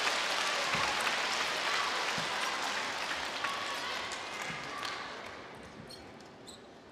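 Spectator applause and cheering in a table tennis arena, dying away steadily after a point, with a few faint knocks.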